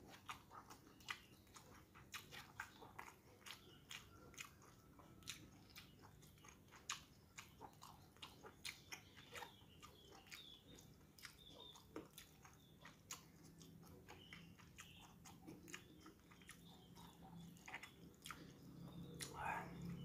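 Faint close-up chewing of a mouthful of noodles, rice and fried fish, with many small, irregular wet mouth clicks and smacks.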